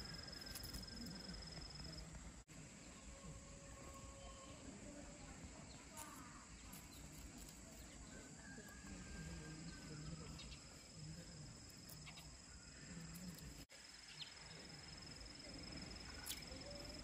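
Faint outdoor ambience with an insect's steady, high-pitched continuous trill. The trill drops out after about two seconds and comes back about halfway through, with a few soft clicks scattered through.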